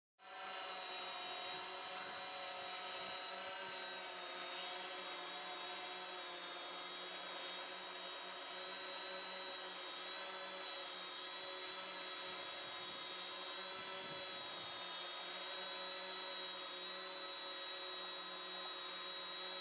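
Hexacopter's six electric motors and propellers in a steady hover: an even multitone hum and whine that holds its pitch throughout, the sign of the craft holding a constant altitude.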